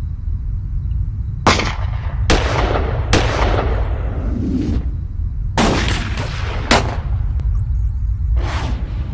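A series of film-soundtrack handgun shots in uneven volleys, about seven or eight in all, each with an echoing tail. They sound over a steady low rumble.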